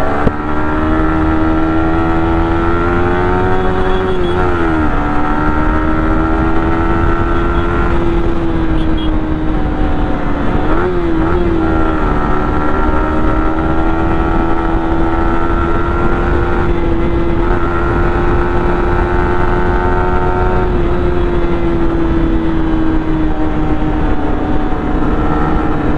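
Yamaha R15M's single-cylinder engine running steadily at cruising speed, heard from the rider's seat, with wind rumble on the microphone underneath. The engine note dips briefly twice, about four and eleven seconds in, then holds steady again.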